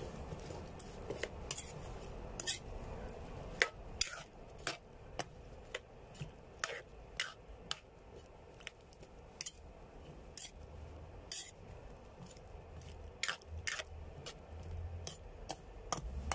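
Metal ladle clinking and scraping against a metal wok while stirring chunks of squash in soy sauce and water. The sharp clinks come irregularly, about one or two a second.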